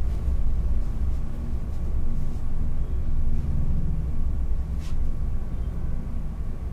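Steady low rumble, with a faint thin steady tone above it and a single brief click about five seconds in.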